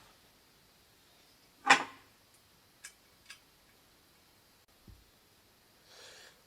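Parts and tools being handled while the inlet manifold studs are fitted on the engine: one sharp clack under two seconds in, two light ticks about a second later, and a soft low thump near the end.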